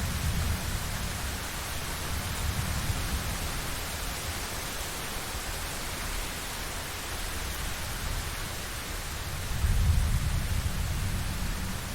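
Steady rain hiss with low rolling thunder rumbles, swelling at the start and again near the end.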